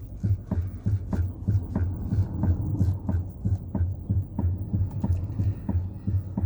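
Chevrolet Onix steering knocking as the steering wheel is worked: a run of dull, low, evenly spaced thumps about three times a second. The owner calls it a steering fault, the steering "batendo" (knocking).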